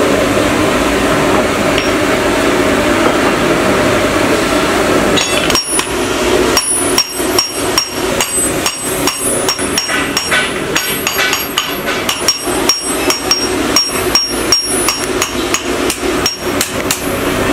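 A steady rushing noise from the forge, then from about five seconds in a hand hammer striking a red-hot sickle blade on an anvil: a long, even run of ringing metal blows, about two to three a second.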